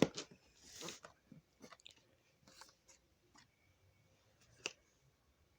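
Rustling and light clicks of packaging being handled, with a hissy rustle about a second in and a sharper click near the end.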